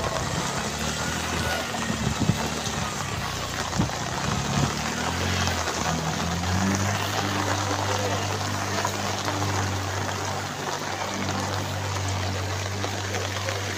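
Heavy rain hissing on floodwater, with sloshing splashes from legs wading through it in the first few seconds. A low steady hum comes in about five seconds in.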